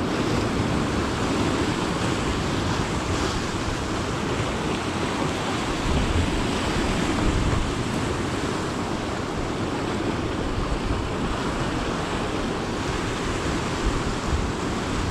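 Sea surf washing steadily against a rocky shore, with wind buffeting the microphone.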